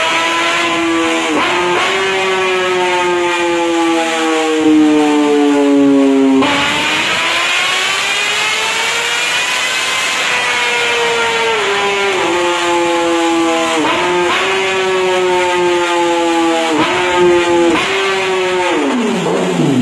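Sport motorcycle engine running hard at high revs on a rolling-road dyno. Its pitch slides and steps up and down several times, rises and falls in one long sweep midway, and winds down steeply near the end.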